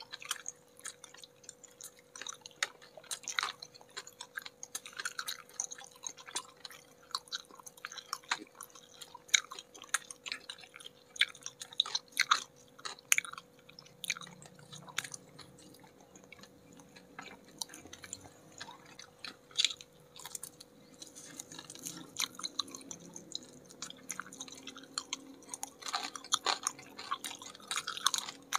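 Two people chewing and crunching crispy batter-fried chicken wings close to the microphone: dense, irregular crackling crunches. A faint steady hum runs underneath.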